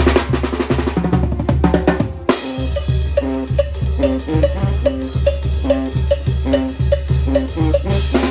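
Banda playing a chilena: the drums carry a busy fill for about two seconds, then the full band comes back in on a steady, bouncing beat with low brass notes.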